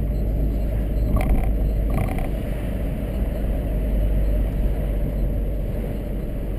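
Steady road and engine rumble inside a moving car's cabin, with tyre noise on the asphalt.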